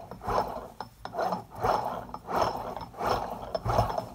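Eaton M90 supercharger's rotors turned back and forth by hand, whirring and rattling in repeated bursts about one and a half times a second. There's still a wibbling: play that new needle bearings have not removed, which the owner suspects comes from worn pins on the rotor ends.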